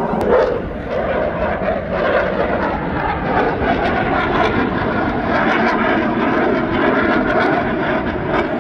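Aircraft flying over: a loud, steady engine drone with a stack of held tones, from a fixed-wing display aircraft.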